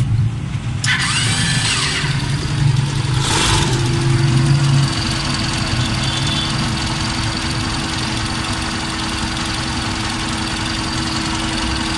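Auto rickshaw engine running with an unusual 'kad kad kad' knocking noise, which the mechanic takes for tappets gone loose from engine oil left too long unchanged. A steady hum joins in about three and a half seconds in.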